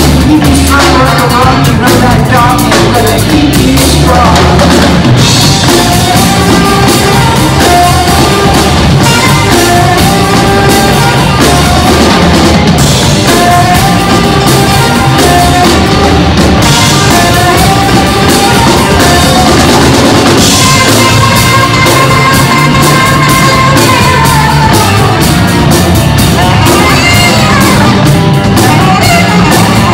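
Live rock band playing loudly: a saxophone carries a wandering melody over electric guitars, electric bass and a drum kit.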